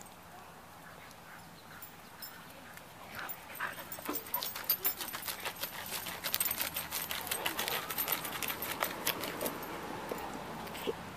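A dog digging a hole in bare dirt with its front paws: a rapid run of scratching and scraping that starts about three seconds in and keeps going until near the end.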